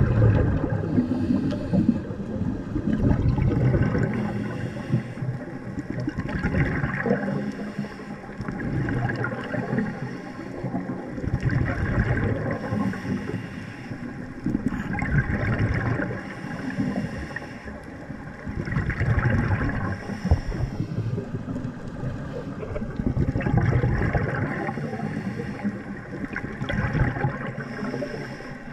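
Scuba regulator breathing heard underwater: exhaled air bubbles gurgling out in bursts every four or five seconds, with a low watery rumble between breaths.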